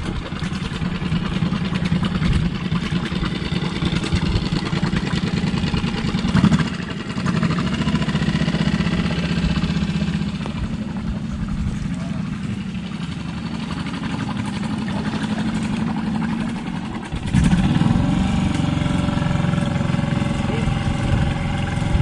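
Outboard motor of a nearby boat running steadily, with a step up in level about six seconds in and a louder step about seventeen seconds in.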